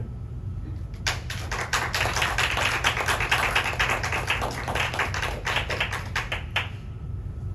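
A small audience applauding, with separate claps standing out. It starts about a second in and stops shortly before the end.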